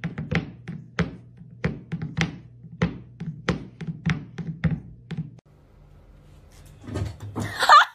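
A cat knocking its empty food bowl against a hardwood floor, about two knocks a second, to ask for food. The knocking stops about five seconds in, and a short high warbling sound follows near the end.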